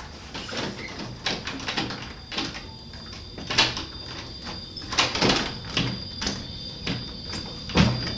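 A stuck door that won't open being rattled and knocked in its frame: a run of irregular knocks and clatters, the loudest near the end.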